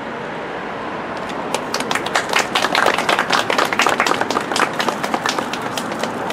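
A small group of people applauding: the clapping starts about a second in, is at its loudest in the middle and thins out near the end, over a steady hiss of nearby traffic.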